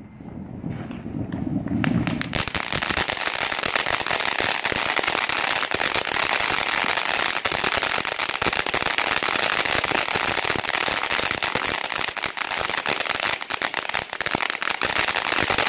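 Ground fountain firework spraying sparks: a steady hiss thick with rapid crackling, building up over the first two seconds.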